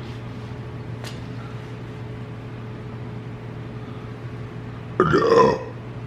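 A man's loud burp about five seconds in, lasting about half a second, over a steady low hum.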